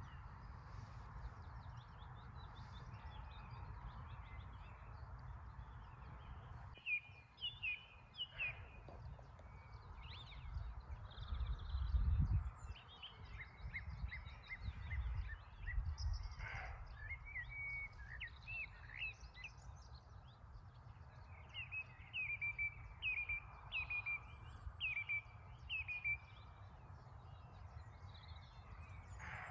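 Small birds singing and calling, with short chirping notes throughout and a run of quick repeated phrases about two-thirds of the way through, over a steady low rumble. A louder low thump comes about 12 seconds in.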